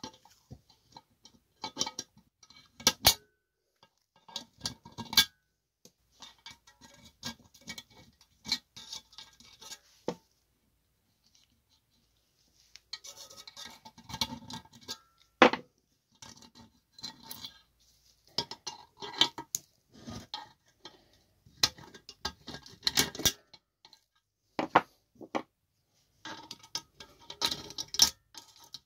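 Small metal engine parts and hand tools being handled: irregular clinks and taps mixed with short bursts of scraping or brushing, with a pause of a couple of seconds about halfway through.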